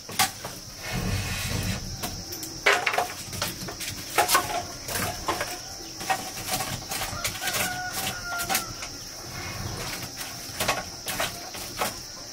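Wood fire in a clay stove crackling with irregular sharp snaps and pops, with sticks knocked and shifted in the firebox. A steady high insect drone runs underneath.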